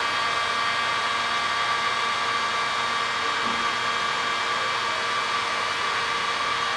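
Heat gun blowing steadily, a constant rush of air with a fixed whine from its fan, while it heats the ends of a polyurethane round belt for welding.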